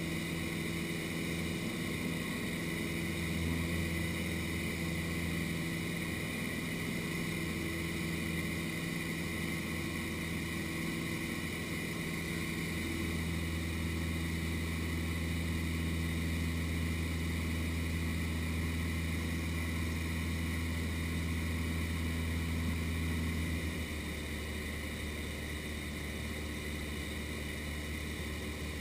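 Cessna 152's four-cylinder Lycoming engine and propeller droning steadily in cruise, heard from inside the cabin. The drone drops a little in level near the end.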